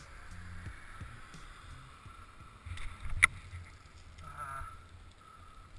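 Faint wind and rolling noise from a bicycle ridden along a paved path, with a sharp click a little after three seconds in.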